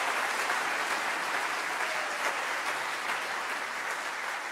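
Audience applauding steadily, the clapping slowly dying down.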